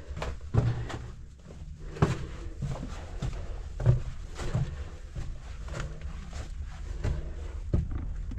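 A hiker's footsteps and gear handling: irregular knocks and scuffs, a few each second, over a low steady rumble.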